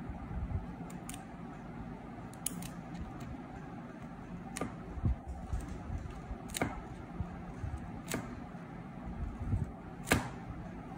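Metal scissors cutting through clear adhesive tape around a paper cutout: several crisp snips, a second or two apart, with faint handling noise between them.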